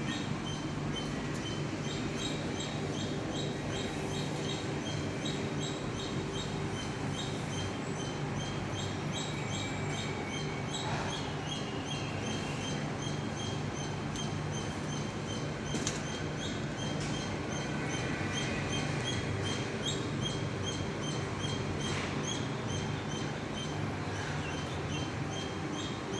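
Makino SLIM 3 CNC vertical machining center running: a steady machine hum with a fast string of short, high chirps over it, several a second, and a few sharp clicks.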